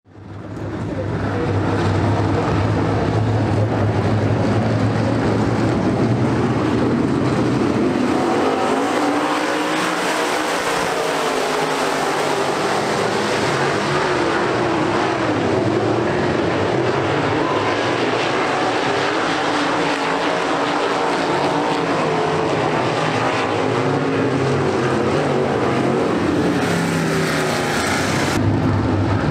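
A pack of UMP dirt modified race cars' V8 engines running around a dirt oval, the engine note of the field rising and falling as the cars accelerate and back off. The sound fades in over the first second.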